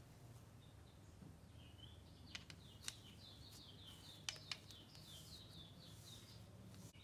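Near silence, with a small bird chirping faintly: short high notes repeated several times a second from about a second and a half in. A few faint clicks are also heard.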